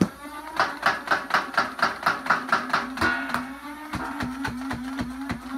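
Motorized Nerf blaster firing foam darts in full auto from a drum magazine. The shots come rapidly, about five a second for roughly three seconds, with a few more later and a steady motor whine underneath.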